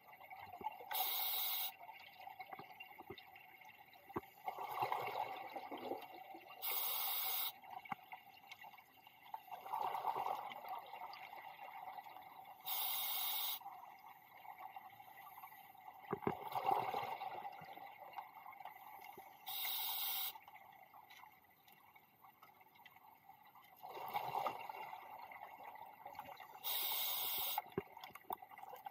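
Scuba diver breathing through a regulator underwater: five short hisses of inhalation, about six seconds apart, each followed a few seconds later by a rush of exhaled bubbles.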